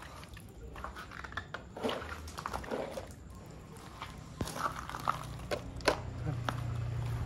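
Scattered light clicks and short crunchy taps of small objects being handled, with a faint low hum coming up near the end.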